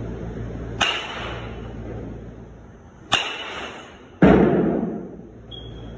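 Baseball bat striking balls in an indoor batting cage: sharp cracks about a second in and again about three seconds in, then a louder, duller thump about four seconds in. A steady low hum runs underneath.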